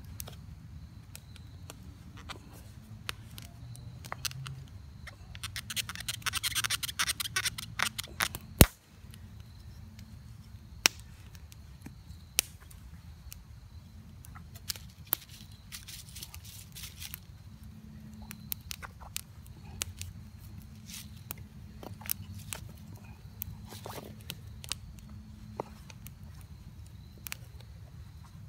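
A wooden bow drill set being handled and loaded: scattered clicks and knocks of the spindle, bow and fireboard. A few seconds of rustling scrape start about six seconds in and end with a single sharp knock, loudest of all. A low steady background noise runs underneath.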